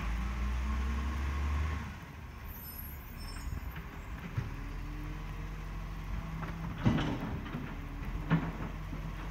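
Garbage truck's diesel engine working at a distance: it runs louder for about the first two seconds, then settles to a steady idle, with two sharp metallic clunks later on.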